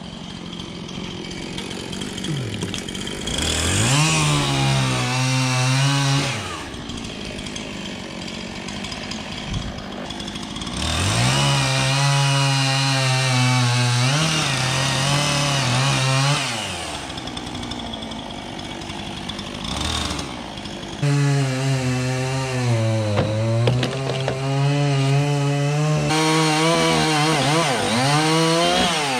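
Chainsaw revved up and cutting into oak wood three times, dropping back to idle between cuts; its pitch sags and wavers while the chain is in the wood.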